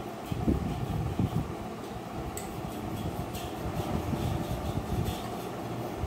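A steady fan-like whir, with three light clinks of a metal spoon against a glass bowl as thick paste is scooped out.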